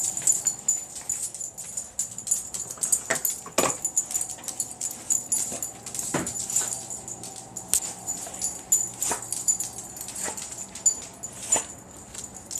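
An excited dog giving several short whines and yips, amid many light clicks and rattles.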